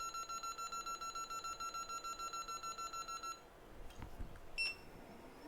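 Rapid, evenly pulsed electronic beeping from soldering and rework equipment during a chip reball, about seven or eight beeps a second, stopping about three seconds in. A soft knock follows, then a single short, higher beep about a second later.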